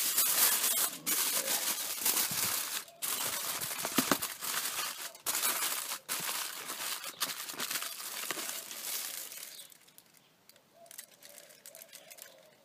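Aluminium foil crinkling and rustling as it is handled and folded by hand. The crinkling dies down about nine and a half seconds in, leaving only faint handling noise.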